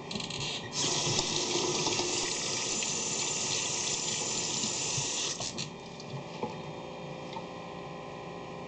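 Water running from a kitchen tap into the sink, turned on about a second in and shut off about four and a half seconds later.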